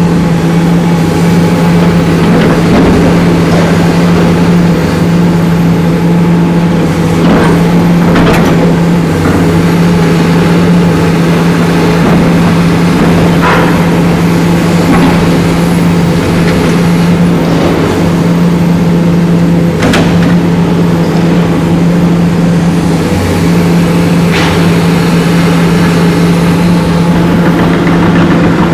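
Diesel engine of a Komatsu PC450 long-reach demolition excavator running steadily under load, with a handful of sharp metallic clanks and crunches as its demolition attachment tears at the steel roof structure.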